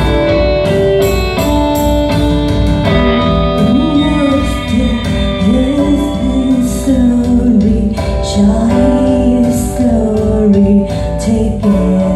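A song played back as a listening test of Bandwidth BWV-2 audio gear: plucked guitar-like notes, then a sung melody with vibrato begins about three seconds in over the accompaniment.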